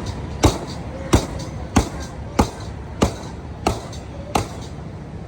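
Butcher's cleaver chopping beef, seven heavy strokes in a steady rhythm about two-thirds of a second apart.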